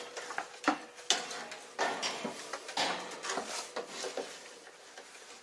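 Parts of a hamster cage clattering as a staircase is fitted inside it: a series of irregular knocks and rattles that die down toward the end.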